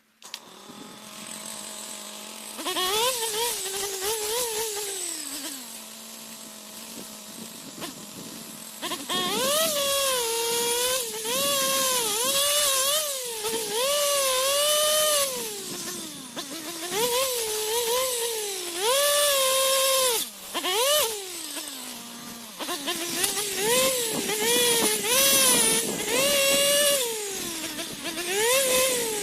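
Small two-stroke engine of a handheld cutting tool coming in at idle, revved up once and back down, then from about nine seconds in revved hard over and over, its pitch rising and sagging with each burst, as it cuts through ironwood saplings.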